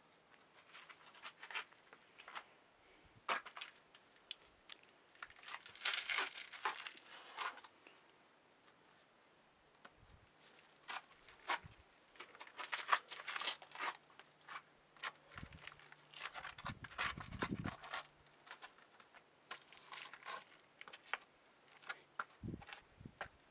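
Irregular rustling, scraping and crackling with many scattered clicks, denser about a quarter of the way in, and a faint low hum that comes and goes.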